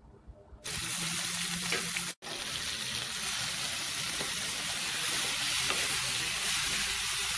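Cooked toor dal sizzling in a pan of hot oil tempering of garlic, mustard seeds and curry leaves as a spatula stirs it. The steady sizzle starts just under a second in and breaks off for an instant about two seconds in.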